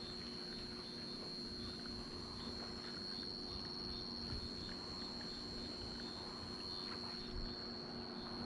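A steady, high-pitched insect trill, with fainter chirps repeating about twice a second, over a faint low steady hum.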